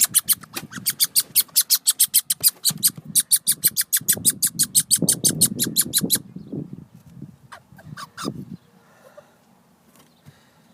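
Young red squirrel chattering in a cage trap: two long runs of rapid, sharp chirps about ten a second, then a few single chirps, over low rustling. It is the agitated alarm call of a cornered squirrel.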